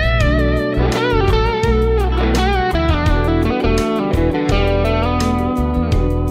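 PRS SE Custom 24-08 electric guitar playing a lead line with string bends and vibrato, over a backing track with a steady drum beat and bass.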